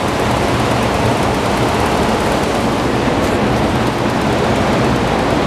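Kawasaki VN800 Vulcan V-twin engine running steadily, heard close to the exhaust.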